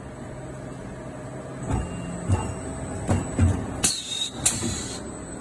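Blow molding machine running with a steady hum. A few dull knocks come about two to three and a half seconds in, then two short, sharp hisses of air about four and four and a half seconds in.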